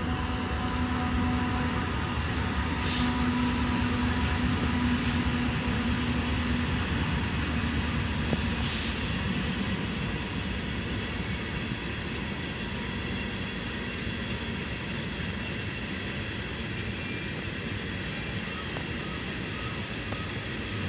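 Freight train of tank cars rolling past with a steady rumble of wheels on rail. It is louder in the first several seconds, then eases off, with a few brief sharp squeaks or clanks along the way.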